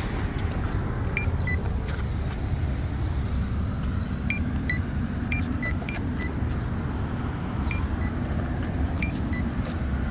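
Steady road traffic running past at an intersection, with short high-pitched chirps now and then, often in pairs of a higher then a lower note.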